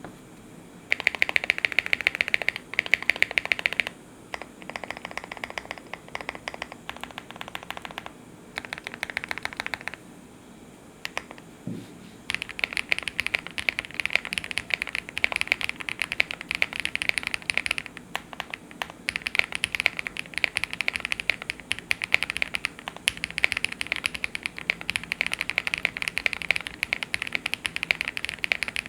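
Typing on a Meletrix Zoom65 (V1) mechanical keyboard with lubed Gateron Soldark switches, GMK keycaps, a PC plate and full stock case foam. Fast keystrokes come in bursts with short pauses in the first half, then run as steady rapid typing from about halfway on.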